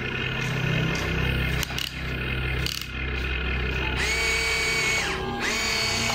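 Electric motors of a hobby-grade RC excavator whining as the boom, arm and upper body move, with a steady low hum under it; a higher whine cuts in about four seconds in, stops briefly near five seconds and starts again.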